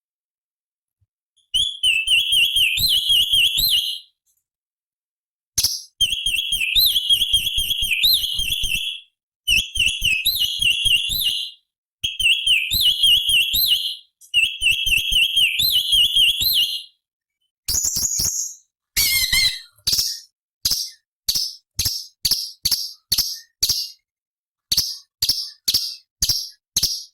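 Orange-bellied leafbird (cucak cungkok) singing: five high, fast warbling phrases of two to three seconds each, with short pauses between them. About two-thirds of the way in comes a quick falling sweep, then a run of short sharp chips, two or three a second.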